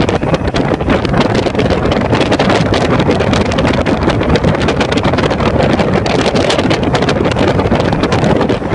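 Wind buffeting the microphone on a fast-moving motorboat, over a steady rush of engine and water noise.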